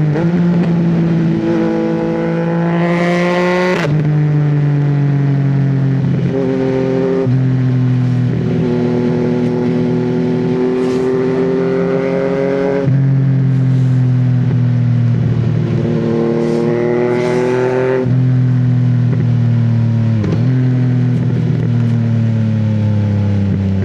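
Yamaha MT-09's three-cylinder engine accelerating through the gears. The pitch climbs steadily in each gear and drops sharply at each clutchless quickshifter upshift, several times, with a few brief dips in revs between the pulls.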